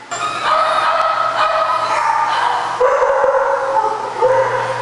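Dogs in shelter kennels crying out in drawn-out, high-pitched whines and yelps that glide in pitch and overlap. The sound cuts in and cuts off abruptly.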